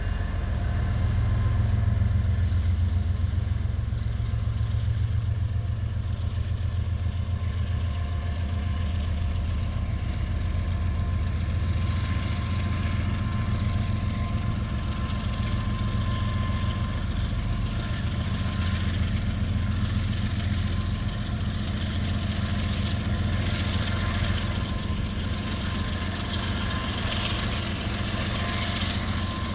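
Diesel locomotive engine running steadily, a deep even hum with no horn.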